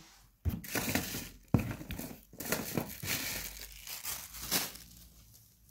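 Packaging crinkling and rustling in irregular bursts as it is handled, with one sharp click about a second and a half in.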